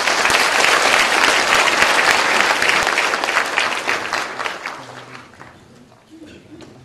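Audience applauding, a dense patter of many hands clapping that dies away after about five seconds.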